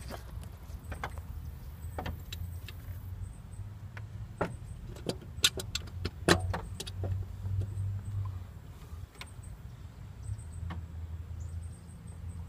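Handling noise from tools and engine parts: irregular sharp clicks and knocks, bunched about five to seven seconds in, over a low steady hum.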